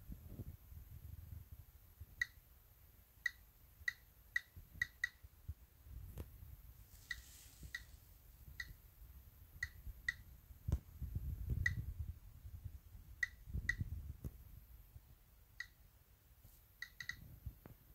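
Geiger counter beeping at random intervals, roughly once a second and now and then two in quick succession, as it registers radiation from radioactive thorium mineral specimens. Under it is a low rumble of the specimens being handled.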